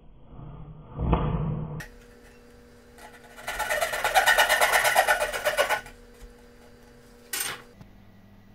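Coping saw cutting through pine to clear the waste between dovetail pins: a couple of seconds of quick, rasping strokes. A short knock follows near the end.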